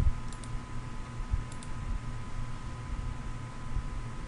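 Computer mouse clicking twice, about a second apart, each click a quick double tick, over a steady background hum.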